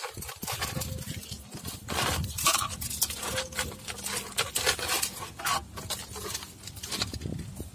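Scales being scraped off a large whole fish in an aluminium basin: irregular rough scraping strokes, some louder than others.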